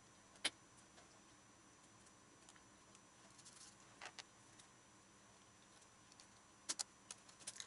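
Near silence broken by a few faint clicks of a piston compression ring against the piston as it is fitted into its groove by hand: one about half a second in, a couple around four seconds, and a short run of clicks near the end.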